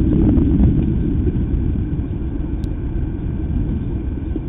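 Steady low rumbling noise with no voices, with a few faint ticks in the first second.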